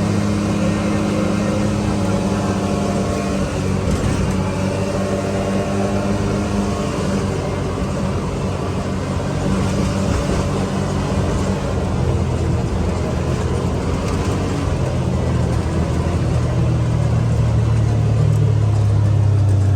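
Can-Am Maverick X3 Max side-by-side running under way, its engine note rising and falling with the throttle and growing louder over the last few seconds.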